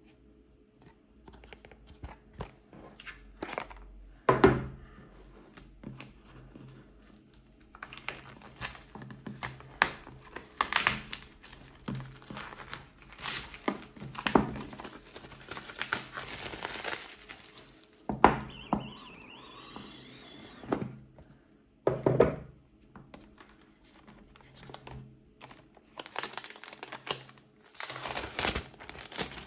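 Hands handling packaging during an unboxing: plastic and paper crinkling and rustling, with scattered clicks and knocks of parts being handled.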